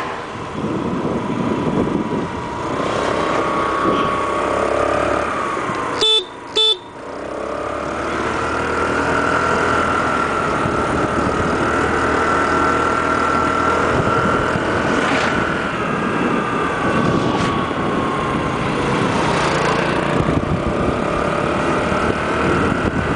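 Motor scooter riding along a road: its small engine running over wind and road noise, the engine note slowly rising and falling with speed. About six seconds in, a horn gives two short beeps.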